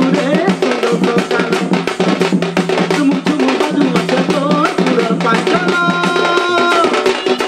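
Odisha tribal folk music: a barrel drum and hand-held frame drums beating a fast, dense rhythm over a low steady drone, with a wavering melody line that holds one long high note about six seconds in.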